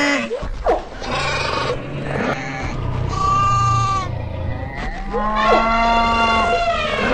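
Several animals calling over a steady low rumble: three long, drawn-out pitched calls about a second in, around three seconds in and near the end, with a few sharp sweeping cries between them.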